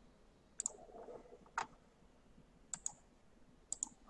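Faint clicks of a computer mouse button: four short, sharp clicks about a second apart, most of them a quick pair of ticks as the button is pressed and released.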